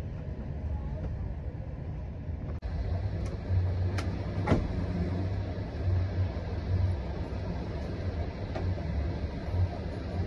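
Passenger train running, heard from inside the carriage: a steady low rumble with a few sharp clacks near the middle.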